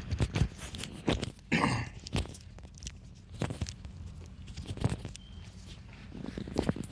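Scattered soft knocks and rustling handling sounds of a chiropractic session, with a short throaty vocal sound about a second and a half in.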